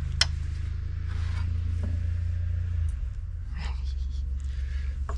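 A low steady rumble, with a sharp click just after the start and a few faint scrapes and clinks of utensils on dishes while food is served.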